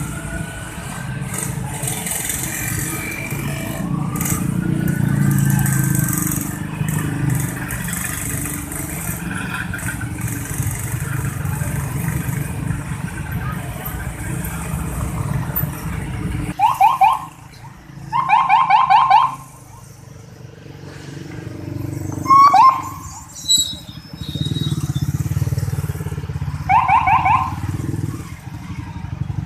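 A convoy of motor scooters riding past with their engines running. In the second half come several bursts of rapid beeping, like scooter horns honked in quick taps.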